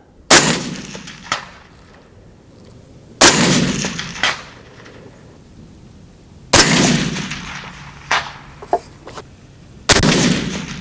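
Four single rifle shots from a suppressed AR-style rifle, about three seconds apart, each with a short echoing tail. After each of the first three comes a faint, sharp ping about a second or a second and a half later: the bullet ringing a steel plate far downrange.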